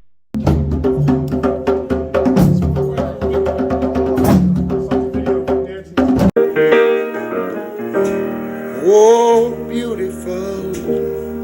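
Music: a piano track with dense drum and percussion strikes that cuts off abruptly about six seconds in. Piano with a singing voice follows.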